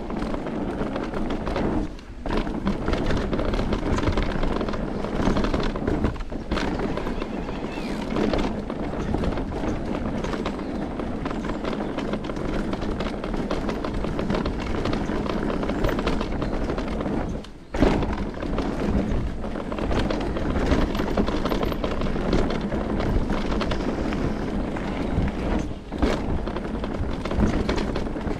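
Electric mountain bike riding fast down a dirt forest trail: constant tyre roar and rattling of the bike, with many knocks over bumps and roots. The noise dips out briefly about four times.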